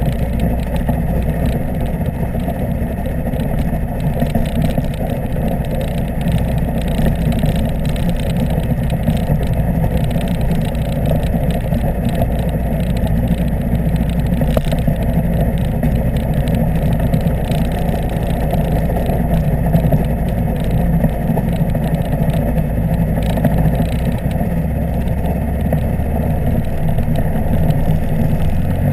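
Weight-shift microlight trike's engine and pusher propeller running steadily while it taxis on the ground, the pitch holding even throughout.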